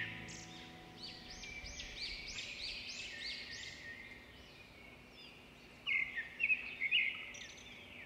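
Birds calling: a quick run of repeated high chirps, about three a second, over the first few seconds, then a few more scattered calls near the end.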